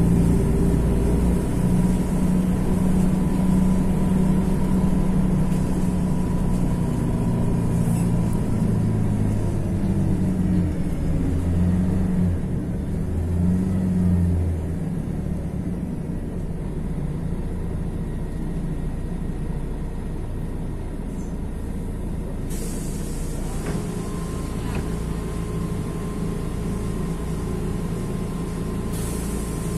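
Mercedes-Benz OM 457 LA straight-six diesel of an articulated city bus running under power, then falling in pitch and settling to a lower, steadier running sound about halfway through as the bus slows. Two short air hisses from the bus's pneumatic brake system come near the end.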